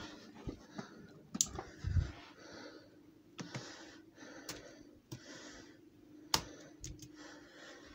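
Scattered clicks and taps on a laptop's keys and trackpad, with a faint steady hum underneath.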